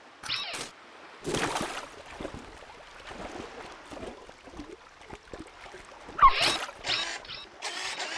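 Cartoon sound effects of a puppy going into the sea: a splash about a second in, then softer water noises, with a short squeaky animal call around six seconds in.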